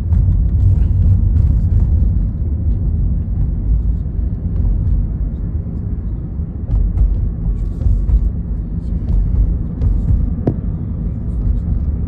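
Steady low rumble of a moving car heard from inside the cabin: tyre and road noise with the engine underneath, and a few faint clicks.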